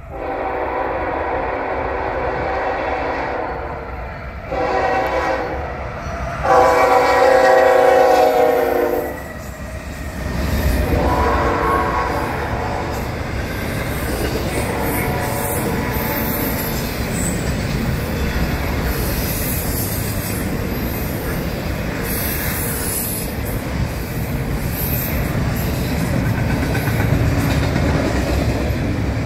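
Union Pacific 7752's locomotive horn sounds four blasts, the third the loudest, as the train approaches. The double-stack intermodal freight cars then roll past in a steady rumble of wheels on rail.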